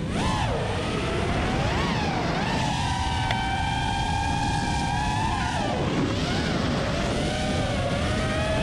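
FPV freestyle quadcopter's Xing 2206 1700Kv brushless motors spinning Ethix S4 props and whining, the pitch rising and falling with the throttle. The whine holds nearly steady for about two seconds midway, drops sharply around six seconds in, then climbs again near the end, over steady wind rush.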